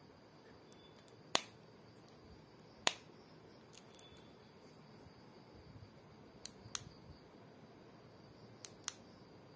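Sharp plastic clicks from a wireless earbud charging case being handled: two single clicks, then two quick pairs of clicks, over a faint steady hiss.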